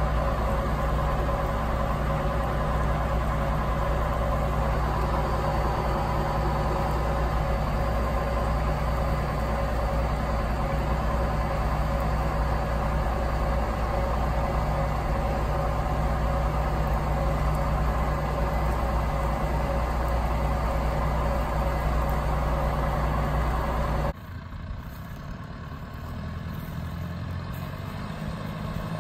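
John Deere 6430 tractor's diesel engine running steadily under load while pulling a reversible plough, heard from on the tractor. About 24 seconds in it cuts to the tractor heard from out in the field: quieter, and growing louder as it comes closer.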